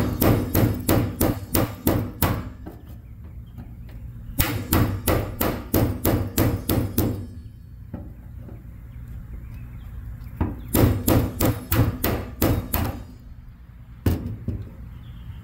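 Hammer blows in three quick runs of about ten taps each, roughly four a second, then one last single strike near the end: hammering on a stuck part of a car's old fuel system to try to knock it loose.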